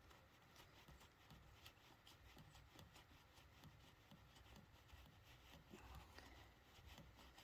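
Near silence with faint, irregular small clicks and rustles of hands handling chainsaw parts.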